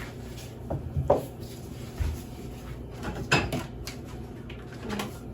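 Light knocks and clatters of a pot and kitchenware being handled, a handful of separate short strikes spread across a few seconds.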